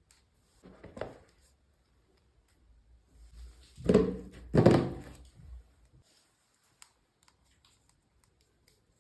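Small objects being handled on a surface: a knock about a second in, two louder thunks about four and five seconds in, then a few faint ticks.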